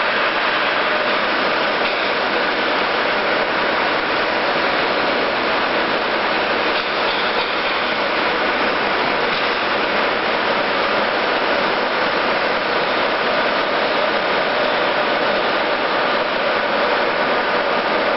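Heat shrink tunnel of a WD150A automatic shrink-film wrapping machine running: a steady whir of its hot-air circulation blowers and mesh conveyor.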